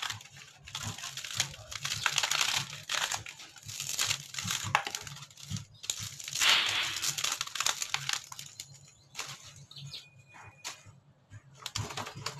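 Old ceiling boards and their wooden slats being handled and broken apart by hand: repeated scraping, crackling and tearing noises with a few sharp clicks, quieter near the end.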